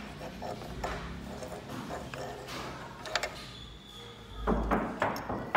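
Scattered clicks and knocks of hands handling a strobe light's wiring, with a faint high tone for about a second just past the three-second mark and a loud dull bump about four and a half seconds in.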